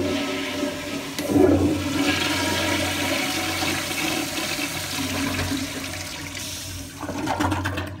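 Old American Standard toilet with a chrome flushometer valve flushing: a loud, steady rush of water through the bowl that eases a little, swells again near the end, then drops off.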